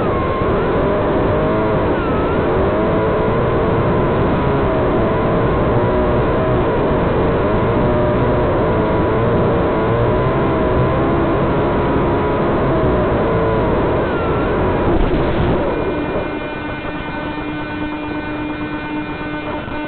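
Walkera Hifa's electric motors and propellers whirring in flight, their whine wavering up and down in pitch as the throttle changes, over wind noise on the onboard camera's microphone. About fifteen seconds in there is a brief rush of noise as it comes down. It is followed by a quieter, steady hum with several fixed tones.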